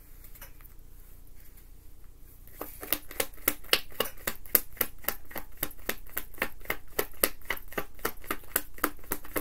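A tarot deck being shuffled by hand. Starting a couple of seconds in, there is a quick, even run of crisp card slaps, about four or five a second.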